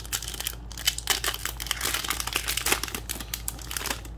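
Foil wrapper of a Pokémon booster pack crinkling as it is handled and opened, with rapid irregular crackles.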